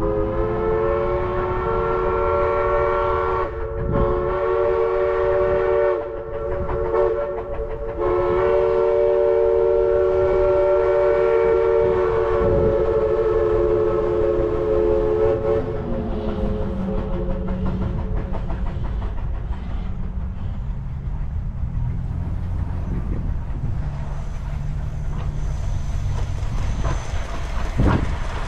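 Chime steam whistle of East Broad Top No. 16, a Baldwin 2-8-2 Mikado, blowing two long blasts, a short one and a long one, the grade-crossing signal. The last blast sags in pitch as it closes. The rumble of the approaching train follows.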